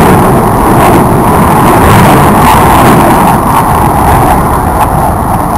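Aircraft flying past, its engine noise a loud, steady rush.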